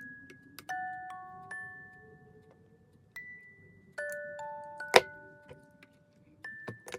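Background music of bell-like mallet notes that ring on after each strike, with scattered light clicks and one sharp, loud click about five seconds in.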